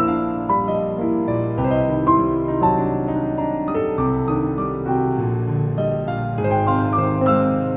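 Background piano music, a flowing melody over sustained chords.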